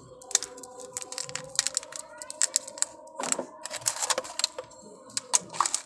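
Irregular crackling clicks of thin plastic cups being handled, filled and pressed with crumbly coco peat and compost potting mix, then set down.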